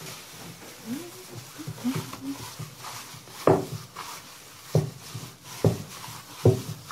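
Yeast dough being kneaded by hand in a plastic bowl, with plastic gloves rustling and squelching, and four dull thumps in the second half as the dough is pushed down against the bowl.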